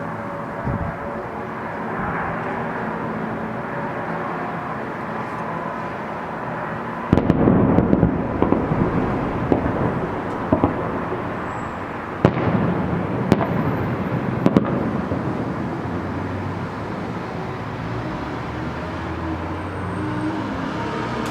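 Fireworks salute: after a steady background din, a dense volley of booming and crackling bursts starts suddenly about a third of the way in, with several sharp bangs over the next several seconds, then eases back to the background din.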